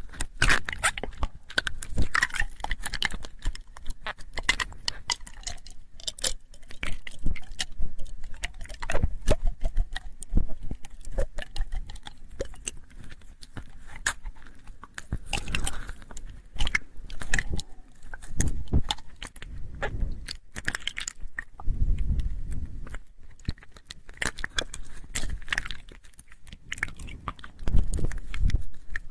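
Close-miked ASMR mouth sounds: a continuous, irregular run of wet clicks and smacks of the lips and tongue, some louder and fuller than others.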